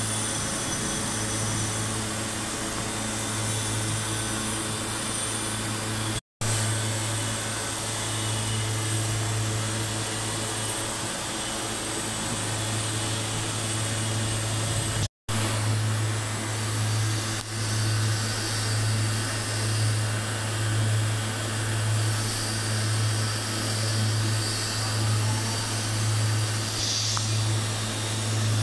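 Electric arc welding on a steel pipe joint: a steady low electrical hum under a smooth hiss, with no crackle or spatter. In the second half the hum swells and fades about once a second and a higher hiss comes in. The sound cuts out twice for an instant.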